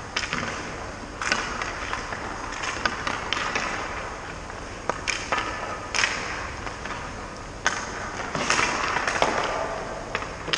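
Sharp cracks of hockey sticks on pucks and of pucks hitting the goalie or the boards, about a dozen scattered through, between scrapes of skate blades on the ice. The cracks echo briefly in the rink.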